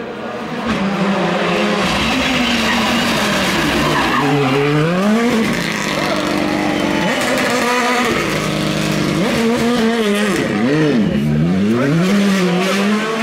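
Rally car driven hard through a corner on tarmac: the engine note drops and climbs sharply again and again as the driver lifts, brakes and changes gear, with tyres squealing.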